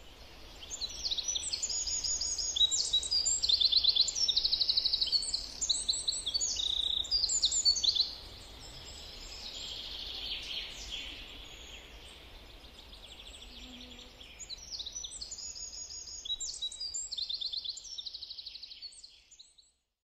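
Songbirds singing in the surrounding trees: fast trills and rapid runs of high repeated notes, loudest for the first several seconds, quieter through the middle, and rising again near the end.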